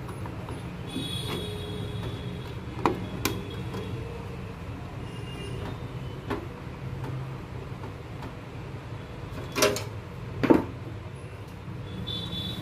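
Hands working inside a desktop computer case, fitting parts and tucking cables around the motherboard. Scattered light clicks, then two louder sharp knocks about a second apart past the middle, over a steady low hum.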